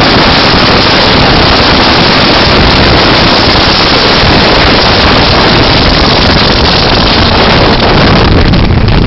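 A motorboat running at speed, its engine noise mixed with heavy wind buffeting on the microphone in one very loud, steady din.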